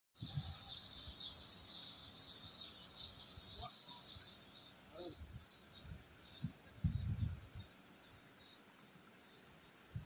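Insect chirping in a steady, even rhythm, about two to three high chirps a second, with low rumbling bumps on the microphone that are loudest about seven seconds in.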